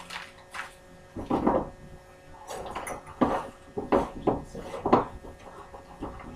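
A stick of cold butter being grated on a metal box grater: a series of uneven rasping strokes, starting about a second in.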